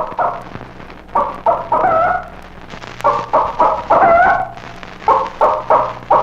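Chicken giving its ground-predator alarm call, a warning of an approaching dog or man: repeated bursts of several short, quick clucks, each ending in a longer drawn-out note, over a steady low hum.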